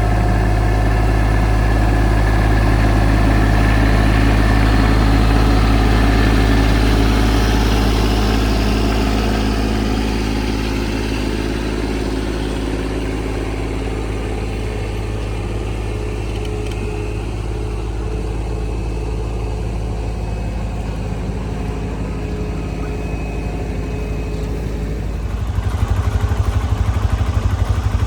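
Tractor engine running steadily, louder for the first ten seconds or so and then easing off. It turns rougher and pulsing near the end.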